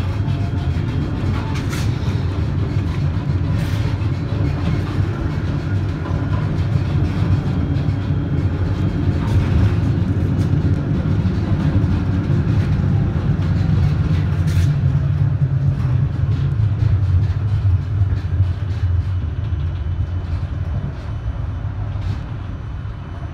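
Tram running along street track, heard from the rear of the car: a steady low rumble of wheels and motors, with a few sharp clicks, getting quieter over the last few seconds.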